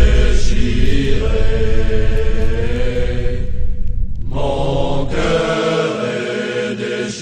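Background music of sustained, chant-like voices holding long notes. It breaks off briefly about four seconds in, then resumes. A deep rumble underneath fades out about five and a half seconds in.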